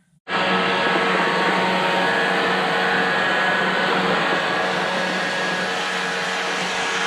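A motor-driven air machine switches on abruptly and runs steadily: a loud rush of air over a motor hum, as used for cleaning brake dust out of a truck's drum brake.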